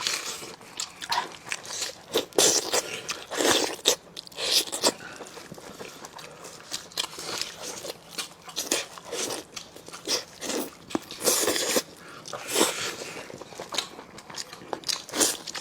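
Close-miked eating: biting and chewing braised spicy lamb chops, with irregular crunches of rib cartilage and wet chewing smacks.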